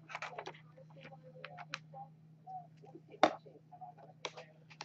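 Scattered light clicks and taps of small plastic makeup cases and compacts being picked up and set down, the sharpest a little over three seconds in, over a steady low hum.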